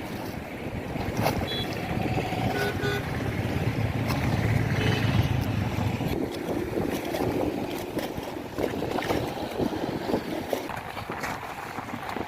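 Gusty wind and choppy lake water, with a boat motor running low underneath.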